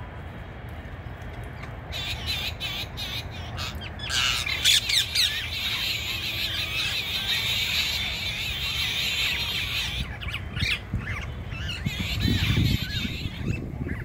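A flock of rose-ringed parakeets squawking, many shrill calls overlapping. The calls start about two seconds in, are busiest in the middle and thin out near the end, over a steady low rumble.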